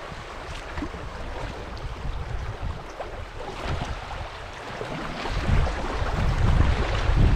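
Shallow river riffle rushing and burbling around a kayak, with splashes from double-bladed paddle strokes. A low rumble of wind on the microphone grows louder about five seconds in.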